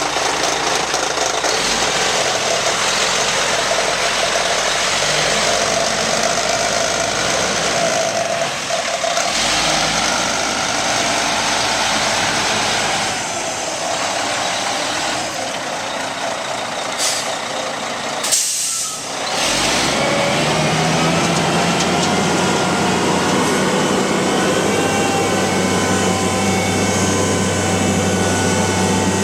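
Kenworth T800 concrete mixer truck's Cat C-10 diesel engine running, with a short sharp hiss of air about two-thirds of the way through. After the hiss the engine note changes to a heavier, steadier low hum.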